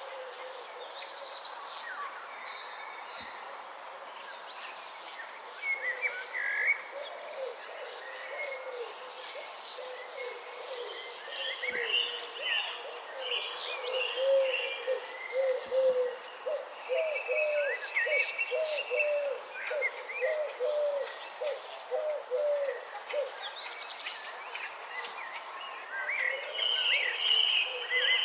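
Forest ambience: a steady high drone of crickets or other insects, with scattered bird calls over it. About halfway through, a lower call repeats every half second or so for about ten seconds. The insect drone breaks off briefly just before that.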